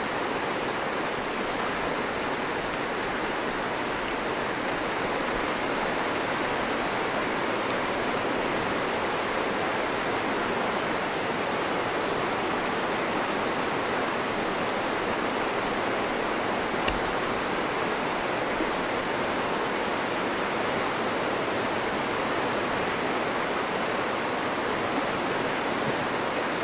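Fast river rapids rushing over rocks, a steady, unbroken rush of water. A single brief click about two-thirds of the way through.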